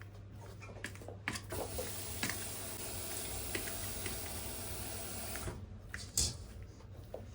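Kitchen tap running into a sink: a steady rush of water starting about a second and a half in and shutting off after about four seconds. A few light knocks come before and after it, with a louder one near the end.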